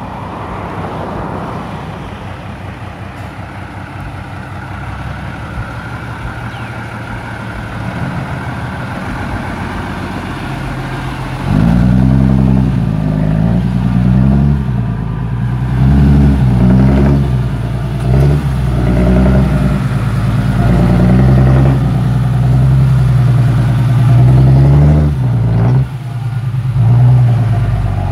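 Isuzu Deca six-wheel dump truck's diesel engine running fairly quietly. About eleven seconds in it becomes much louder and revs up and down repeatedly as the loaded truck manoeuvres.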